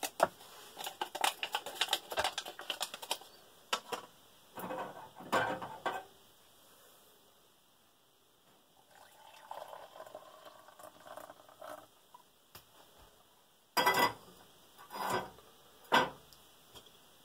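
Instant coffee powder shaken and tapped out of a foil packet into a ceramic mug, a dense patter of small ticks, then hot water poured from a small camp pot into the mug for about three seconds. A few sharp clinks of pot and mug follow near the end.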